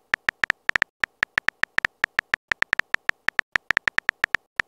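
Texting-app keyboard sound effect: a quick, uneven run of short identical electronic blips, one for each letter typed into a text message, several a second.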